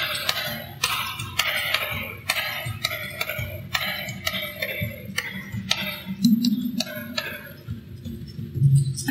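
Solo hand percussion on a rope-tuned hand drum and a small mounted block: crisp strikes about twice a second. Two deeper drum tones come about six and about nine seconds in.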